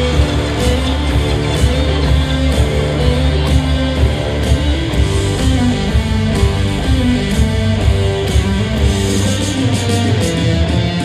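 Live rock band playing loudly: electric guitar over heavy bass and drums keeping a steady beat.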